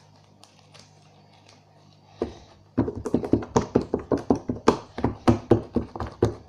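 Slime being played with roughly by hand, slapped and punched: a fast run of slaps, about four or five a second, that starts about two to three seconds in after a quiet start with a few faint clicks.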